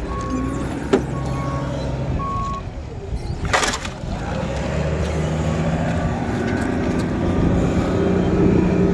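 Vehicle backup alarm beeping steadily about once a second, then a loud clunk about three and a half seconds in, followed by a vehicle engine running steadily.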